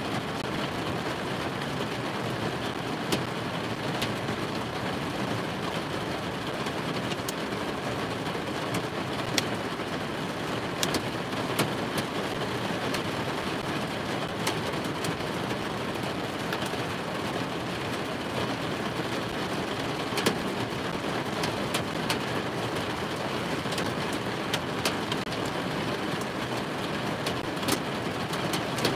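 Heavy rain drumming steadily on the roof and windows of a vehicle, heard from inside the cab, with scattered sharp individual hits.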